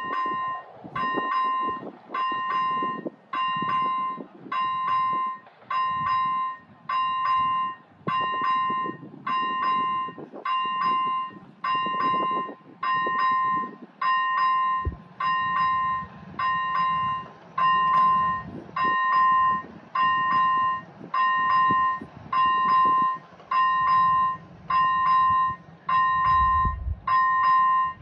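Czech railway level-crossing warning signal ringing: an electronic bell tone repeating about once a second while the red lights flash, warning that a train is approaching and the crossing is closing.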